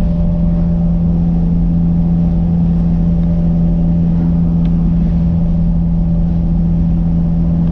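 Nissan Hardbody pickup driving at a steady cruising speed, heard from inside the cab: a low engine and road rumble with a steady hum that holds one pitch.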